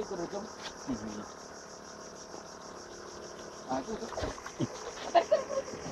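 Knocks and thuds of a stingray being handled and lifted against the side of a small boat, the loudest a little after five seconds, over a steady high insect chorus and faint voices.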